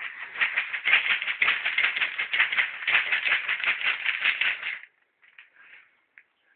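Ferret dooking: a rapid, chattering run of clucks that stops suddenly about five seconds in, followed by a few faint scattered clucks.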